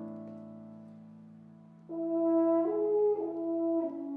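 Chamber ensemble music: a held chord fading away, then a French horn enters about two seconds in with a slow phrase of a few long held notes.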